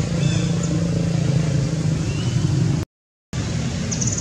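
Steady low rumble of a running engine, with a few faint high chirps over it. The sound cuts out completely for about half a second just before three seconds in. Then the rumble resumes, and a short high squeak comes near the end.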